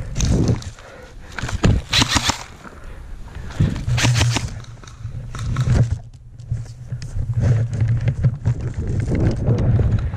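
Footsteps and gear rustle of a person moving across grass, irregular and strongest around two and four seconds in, over a low steady rumble on the microphone.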